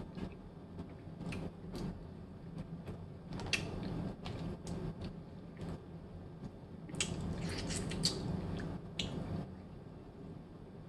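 Boiled colossal shrimp being peeled by hand: the shell crackling and clicking, in two longer bursts, one about a third of the way in and one past the middle.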